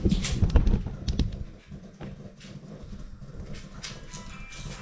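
A few short knocks and clatter of kitchen work in the first second or so, then a quieter stretch with a low background hum and a few light ticks.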